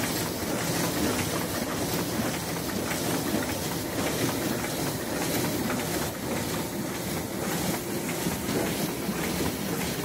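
Paper cup printing machine running, a steady mechanical noise with a constant patter of small clicks from its moving parts.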